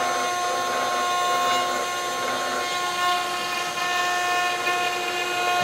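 CNC router spindle with a 3 mm ball-nose bit running and carving wood on a finishing pass at a raised feed rate. A steady high whine with several constant tones over a rough cutting noise.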